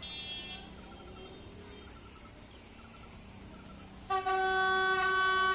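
Diesel locomotive air horn sounding one long multi-tone blast about four seconds in, as the train approaches the station.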